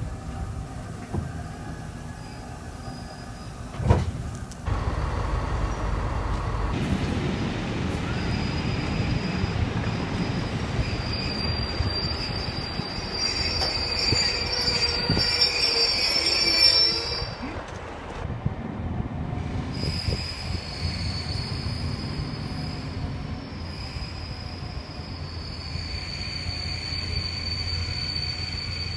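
Passenger trains slowing under braking, in several separate recordings cut together: a low running rumble with a sharp knock about four seconds in, then high-pitched brake squeal from about eleven seconds to seventeen, and another squeal from about twenty seconds on as a train draws to a stop.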